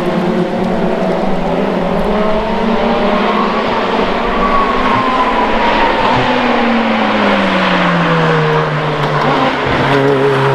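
Ferrari FXX K track car's V12 engine running at high revs, its pitch falling steadily over the last few seconds as the car goes past or lifts off.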